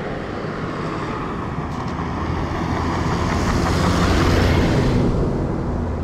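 A motor vehicle's engine running with a loud rushing noise, swelling louder about four seconds in and easing off near the end.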